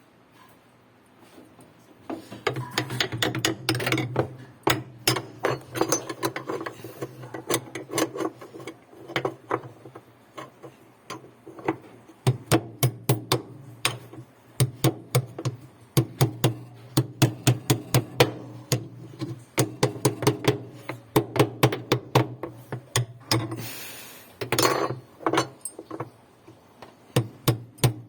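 Rapid, repeated sharp knocks, like hammering, several a second over a steady low hum, with a short break in the hum near the middle.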